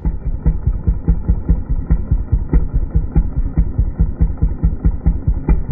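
Homelite chainsaw engine idling: a steady run of rapid, even pulses. It sounds muffled, with no treble.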